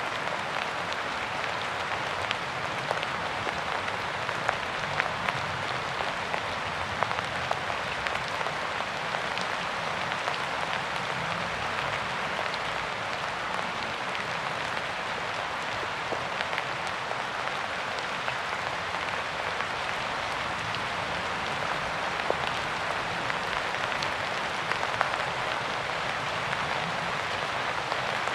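Steady rain falling: a dense, even hiss with many scattered sharper drop hits.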